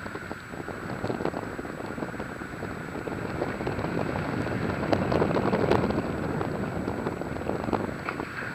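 Wind from the airflow of paraglider flight buffeting an action camera's microphone, a steady rushing noise that grows louder about five seconds in.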